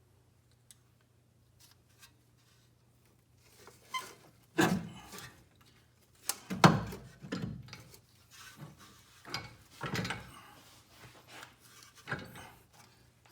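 Irregular metallic clunks and scraping as front suspension and axle parts are shoved and levered by hand to line them up, with the loudest knock about six and a half seconds in. The parts are still sitting too high to fit.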